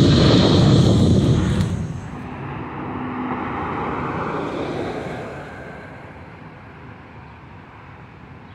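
Airplane engines passing close by. The loud roar drops off sharply about two seconds in, swells briefly, then fades away as the plane moves off.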